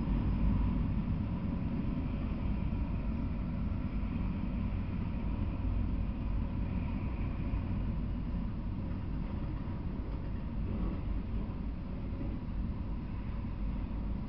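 Freight train of autorack cars rolling past, a steady low rumble of steel wheels on the rails that fades slightly toward the end.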